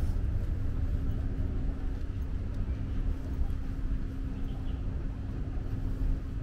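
Steady low rumble of outdoor urban background noise with a constant low hum running under it.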